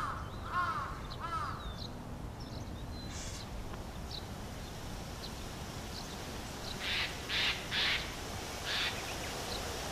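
A crow cawing three times in quick succession, followed later by a few short, rasping, noisy sounds over a steady outdoor background hiss.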